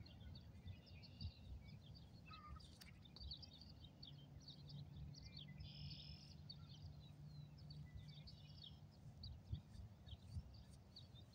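Faint birdsong: many short chirps and trills from several small birds, over a low outdoor rumble. A faint steady low hum runs from about four to nine seconds in.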